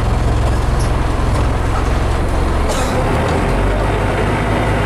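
Scania CN270UB city bus heard from inside the passenger cabin while running: its diesel engine gives a steady low drone. About halfway through, the engine note drops and a brief hiss sounds.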